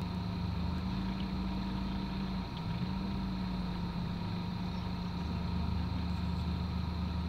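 Intercity coach's diesel engine running steadily: a low drone with a faint steady whine above it, its pitch dipping briefly about two and a half seconds in.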